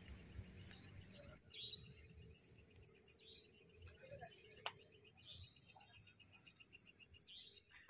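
Near silence: faint outdoor ambience with a few soft high chirps about every two seconds and a single faint click.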